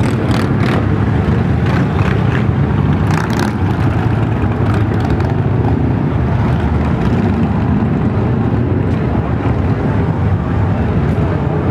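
Steady low vehicle-engine rumble with wind noise on the microphone.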